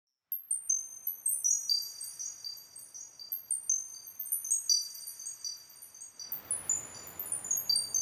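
High-pitched wind chimes ringing, many small struck tones at irregular moments, each ringing on and overlapping the next. A soft rushing noise comes up beneath them about six seconds in.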